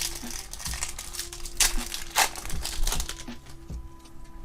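Yu-Gi-Oh trading cards being handled and flipped through by hand: irregular rustling and crinkling, with two sharper snaps about a second and a half and two seconds in.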